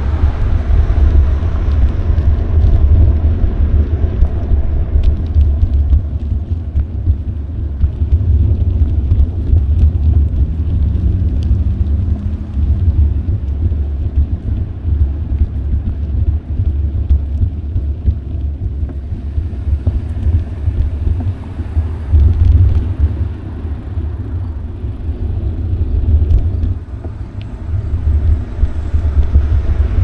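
Wind buffeting an action camera's microphone while cycling, a loud, uneven low rumble. A faint rising hum comes in about ten seconds in.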